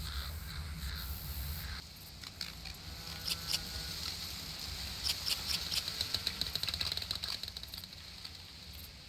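Outdoor nature ambience: a low rumble at first, then a quick run of high clicking chirps, densest around five to seven seconds in, before fading.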